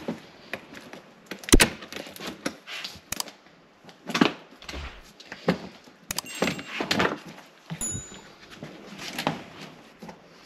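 A large hard plastic carrying case being pulled out, set down and opened: a string of knocks, clicks and scrapes, the sharpest knock about one and a half seconds in.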